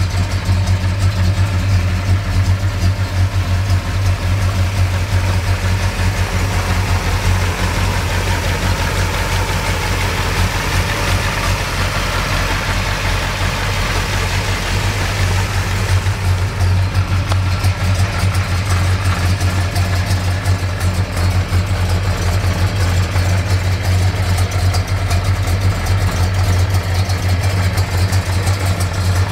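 Dodge 440 V8 of a 1969 Charger R/T idling steadily.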